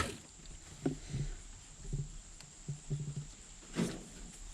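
Refrigeration vacuum pump switched off, its steady hum cutting out right at the start. After that it is quiet, with faint scattered low knocks and short sounds.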